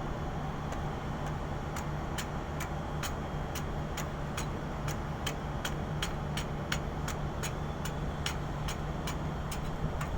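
Hand scraper working on the ship's steel hull plating, knocking off peeling paint in quick, regular sharp strokes, about two to three a second, starting about a second in. This scraping is the surface prep before primer goes on. A steady low machinery hum runs underneath.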